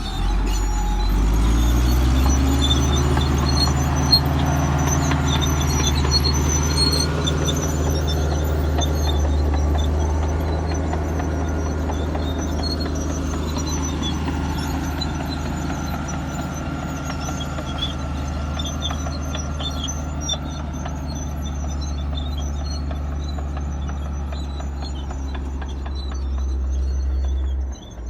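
Komatsu D155A-5 crawler bulldozer's diesel engine running steadily as the machine works, with short high-pitched squeaks from its steel tracks over the engine note.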